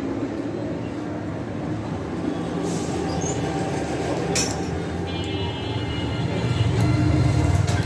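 Steady low mechanical rumble with a few sharp clicks, about three seconds in, about four and a half seconds in, and near the end; the rumble swells near the end.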